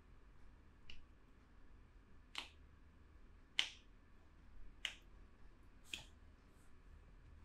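Five short, sharp snaps, a little over a second apart, the middle one the loudest.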